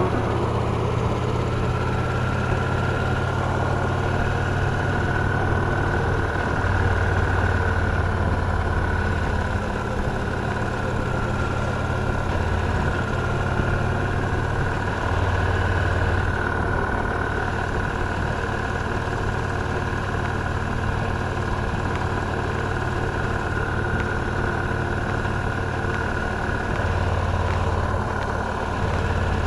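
Victory Cross Roads Classic LE motorcycle's 1,700 cc V-twin engine running steadily, with small changes in its note every few seconds.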